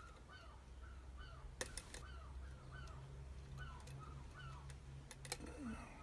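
A bird chirping over and over in the background, short calls two or three a second, with a few sharp metallic clicks from lock-picking tools working the pins of a lock.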